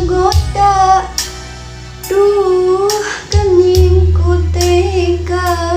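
A young girl singing a Sundanese pop song, holding notes with vibrato, over a backing track with a steady bass line.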